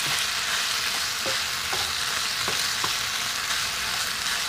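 Small chicken pieces sizzling steadily in hot oil in a non-stick frying pan, stirred with a wooden spatula that gives a few light scrapes and taps against the pan.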